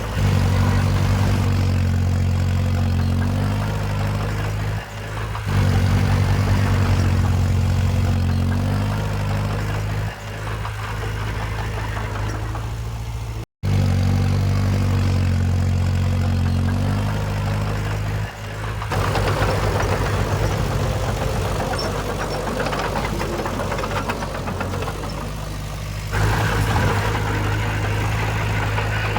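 Komatsu D20 bulldozer's diesel engine running steadily, with its engine note shifting as the load changes and several brief dips. The sound cuts out abruptly about halfway, then resumes with a rougher, noisier stretch in the later part.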